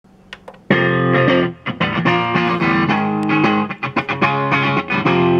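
Guitar music played from a disc through a Sony TA-F707ES stereo amplifier and loudspeakers, starting abruptly under a second in after a couple of faint clicks.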